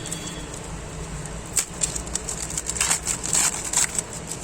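Foil trading-card packet crinkling and cards being handled: crackly rustles, most of them bunched together just past the middle, over a steady low hum.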